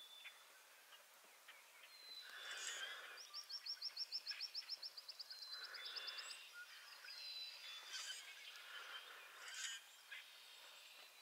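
A small songbird's rapid, dry trill of about nine notes a second, lasting nearly three seconds, over faint marsh ambience.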